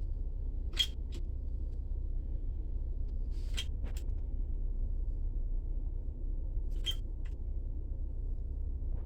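Caulk gun being pumped on an almost empty tube of Lexel sealant: three short trigger clicks, about three seconds apart, each followed by a lighter tick, over a steady low hum.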